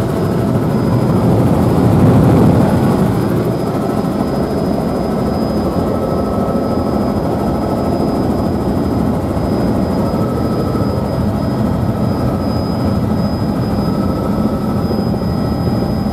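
Helicopter cabin noise in flight: a steady engine and rotor drone with thin high whines held over it, swelling briefly about two seconds in.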